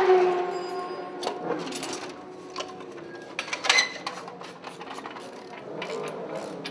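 A racing motorcycle engine fades away with a falling pitch, then scattered metallic clicks and knocks of hand tools on the bike, the loudest a sharp clank a little under four seconds in.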